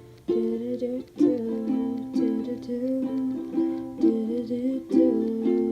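Music: a small acoustic string instrument strummed in chords, with no singing.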